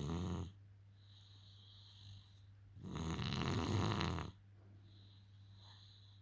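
A person snoring: the end of one snore right at the start, then a second full snore about three seconds in that lasts around a second and a half, with soft breathing between. A faint steady low hum runs underneath.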